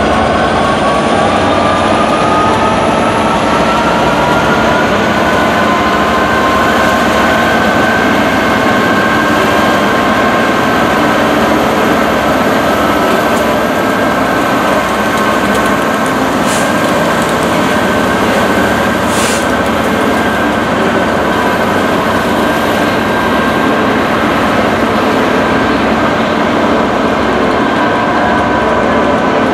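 Class 67 diesel locomotive with its two-stroke EMD V12 engine, running loud as it hauls coaches slowly past. Its engine note climbs over the first several seconds, then holds steady.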